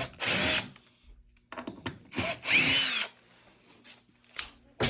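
Power drill run in two short bursts, its motor pitch rising and falling, backing screws out of a drawer front. A sharp knock right at the end.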